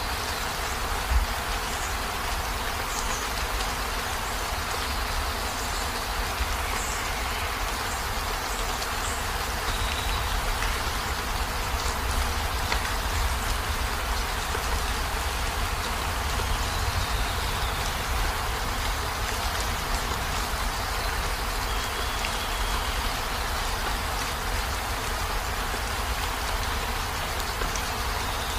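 Steady heavy rain falling on a campervan's roof and windows, with a low rumble underneath and one louder thump about a second in.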